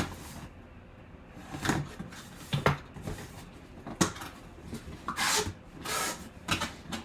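Packaging of a boxed mini helmet being handled and opened: a handful of separate light knocks and clicks, with two brief rustles near the end.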